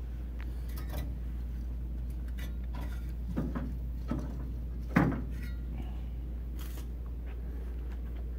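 A few light clicks and small knocks, the loudest about five seconds in, over a steady low hum.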